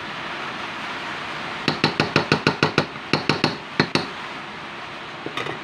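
Metal spoon tapped against a mixing bowl to knock coconut flour off it: a quick run of about a dozen sharp clinks, roughly six a second with two short breaks, then two faint taps near the end. A steady hiss runs underneath.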